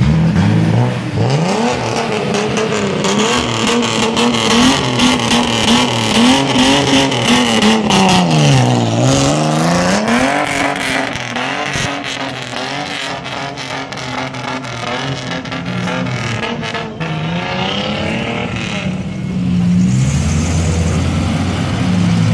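Bosozoku-style modified car engines revving as the cars pull away. The pitch climbs, wavers up and down, sags about nine seconds in and rises again. A deeper, steadier engine takes over near the end.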